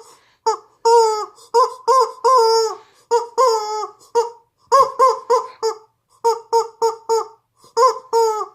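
Rubber chicken squeezed over and over, giving a fast string of short, honking squeaks with brief pauses between groups.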